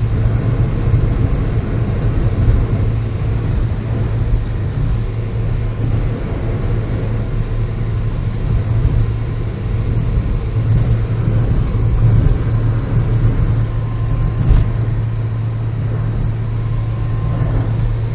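Steady car interior noise while driving: a low engine and road drone under a broad rushing hiss.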